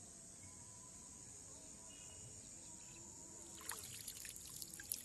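Water trickling from cupped hands and splashing back into still pond water, a short run of small splashes and drips in the last second and a half, over a steady faint high hiss.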